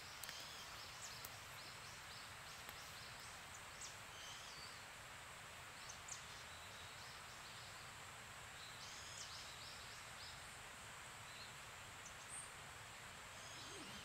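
Quiet forest ambience: a steady faint hiss with scattered groups of faint, short, high chirps from small birds.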